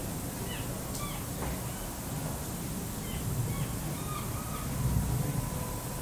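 Distant thunder rumbling low, swelling in the middle, under scattered short bird calls.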